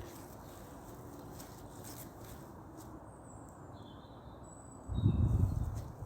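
Outdoor nature ambience: a steady low background with a few faint, short bird chirps. Near the end comes a louder low rumble, lasting about a second.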